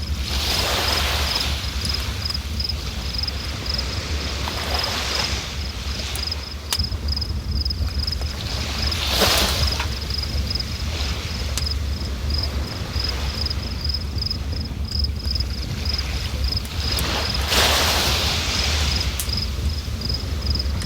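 River water rushing steadily, a deep rumble with a hiss that swells every few seconds. Over it, insects chirp in a fast, even pulse.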